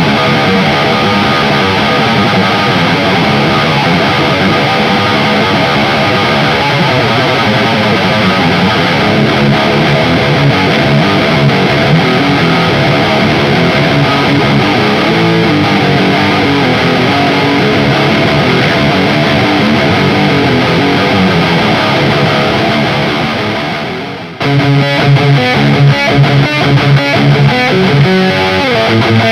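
Electric guitar through its stock Ibanez STD C1/C2 humbucker pickups, played with heavy distortion. Sustained chords ring and die away about four-fifths of the way through, then a choppy rhythm part starts, with a downward slide near the end.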